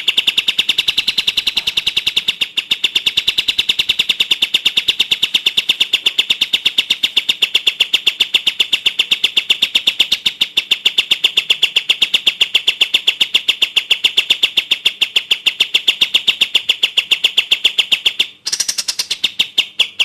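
Crested jay (cililin) giving a long, rapid, machine-gun rattle of sharp high notes at an even pace, breaking off briefly a little after 18 seconds in and then starting again.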